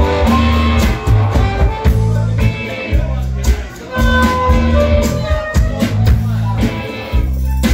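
A live blues-rock band plays a song between vocal lines: a drum kit beat under bass and electric guitar, with a harmonica playing held notes over the top.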